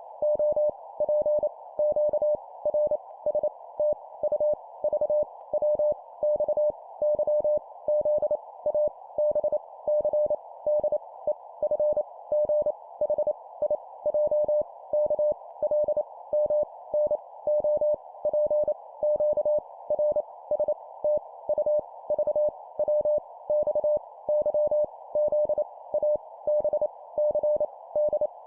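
Morse code (CW) practice sending random letters at 25 words per minute: a single steady mid-pitched beep keyed on and off in quick dots and dashes, with short gaps between letters, over a steady narrow band of hiss like a receiver's CW filter.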